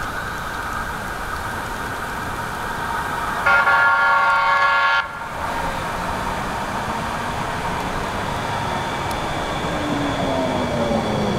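NJ Transit Hudson-Bergen Light Rail car, a Kinki Sharyo light rail vehicle, approaching with a steady motor whine. It sounds one horn blast of about a second and a half, a few seconds in. Near the end a whine falls steadily in pitch as the train draws close.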